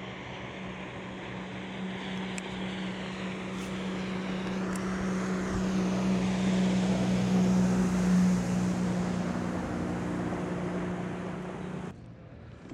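A passing engine drone: a steady hum that grows louder, peaks, then eases off. It cuts off abruptly near the end.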